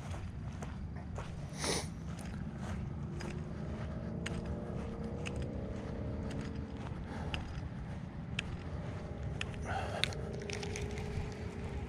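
Footsteps crunching through dry grass and pine needles, with wind rumbling on the microphone. A faint wavering hum sits underneath from about three seconds in.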